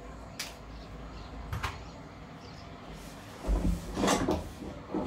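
Dishes being handled in a stainless steel kitchen sink: a couple of light clicks, then a louder clatter of crockery and pans knocking against each other and the steel about three and a half seconds in, and another knock near the end.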